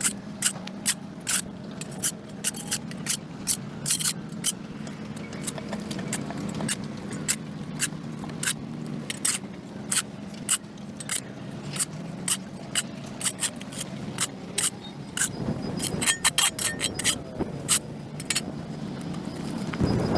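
A hand tool scraping dirt and grass off a concrete sidewalk in repeated short, sharp strokes, about two a second and quicker near the end, over a steady low hum.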